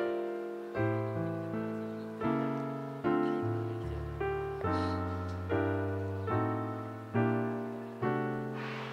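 Background piano music: notes and chords struck in a slow, even rhythm, about one every second, each ringing and fading before the next.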